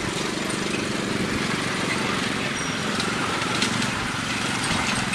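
A small engine running steadily with a constant low hum, over an even background hiss and a few faint clicks.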